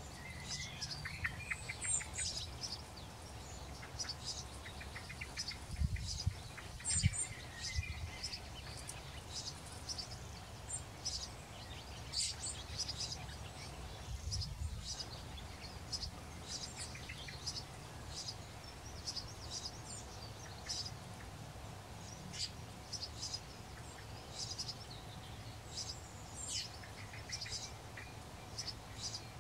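Small birds chirping and calling again and again: short high chirps with a few lower trills, over a steady low background rumble, with a couple of soft low thuds about six and seven seconds in.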